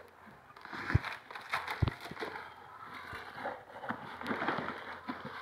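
Rustling and handling noises of packaging and items being unboxed, with scattered light clicks and two sharper knocks about one and two seconds in.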